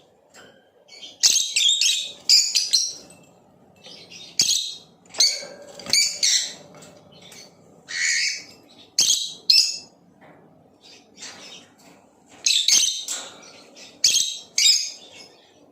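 Blue opaline lovebird chirping: shrill, harsh chirps in quick clusters with short pauses between them.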